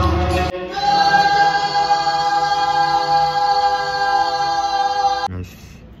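Voices singing together, holding one long, steady chord that cuts off abruptly near the end.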